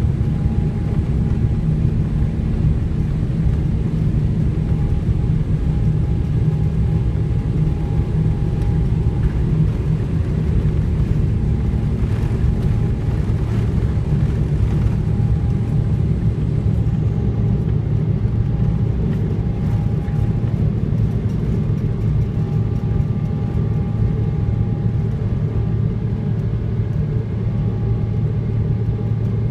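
Boeing 777 cabin noise through the take-off roll and lift-off: a steady, loud rumble of the jet engines at take-off thrust and the runway, with a thin steady whine above it. Partway through, the high hiss thins out.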